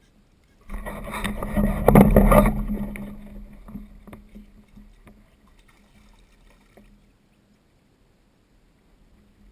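Sudden burst of water and hull noise from a fishing kayak, with knocks, loudest about two seconds in and fading out over the next few seconds.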